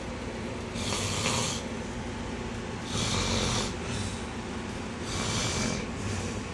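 A sleeping person snoring: three noisy, breathy snores about two seconds apart.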